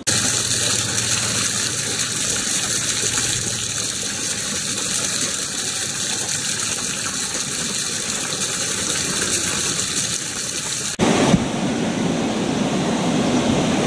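Water jets of a fountain splashing and spattering steadily. About 11 s in, the sound cuts abruptly to a lower, rougher rushing noise.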